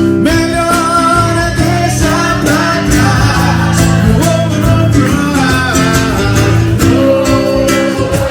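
Live music: a singer with guitar accompaniment over a steady bass line.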